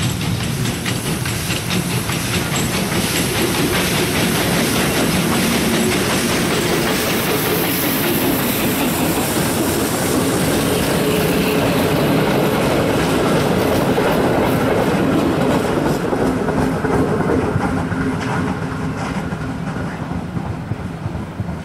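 Pt47 steam locomotive passing close with a passenger train: the exhaust beats of the locomotive, then the carriages' wheels clattering over the rail joints. The sound fades over the last few seconds as the train moves away.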